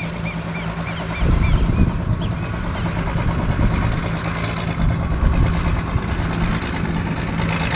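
Piston aircraft engine running steadily, its low hum growing louder about a second in.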